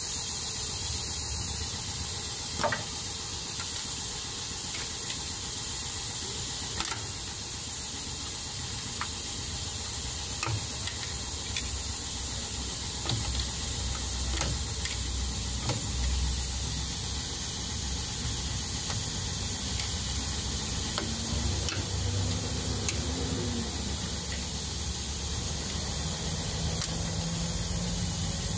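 Steady hiss with scattered light clicks and taps as a flat pry tool works around the edge of the crankshaft front oil seal on an Isuzu 4HF1 diesel engine.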